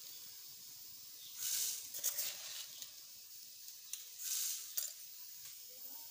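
Sugar spooned into a plastic blender jar onto banana and strawberries. There is a short granular hiss twice, about a second and a half in and again past four seconds, and each is followed by a sharp click.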